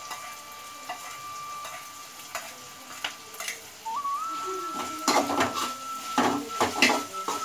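A metal spoon stirring onions and tomatoes sizzling in a steel frying pan, with a run of clinks and scrapes against the pan in the second half. A thin whistling tone is held throughout, dipping and rising in pitch now and then.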